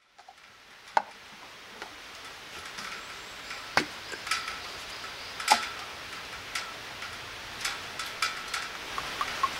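Sharp clicks and knocks of a plastic cup and a cooking-oil bottle being handled and uncapped on a slatted wooden table, the loudest about a second in and twice more near the middle, over a steady soft hiss.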